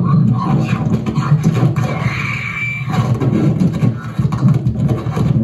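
Live noise-music performance: amplified vocal sounds run through a mixer and effects, making a dense, fluttering low drone, with a brief high whine about two seconds in.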